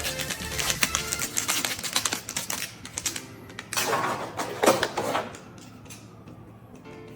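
Background music with rapid, dense clicking and rattling of plastic toy parts being handled, then a louder noisy burst about four seconds in. After that the clicks stop and only the music remains.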